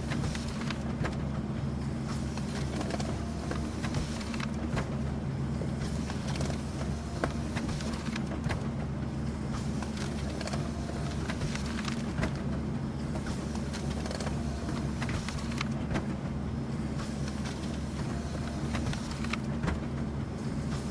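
Office printer running as paper feeds through: a steady low mechanical hum with scattered light clicks and ticks.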